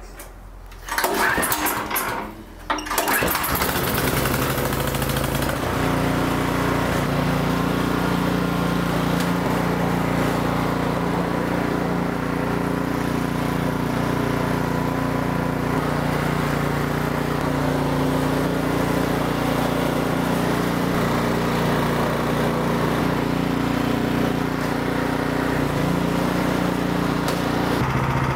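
Ariens Platinum 30 snowblower's single-cylinder engine being started: it cranks about a second in, catches within about two seconds, and then runs steadily.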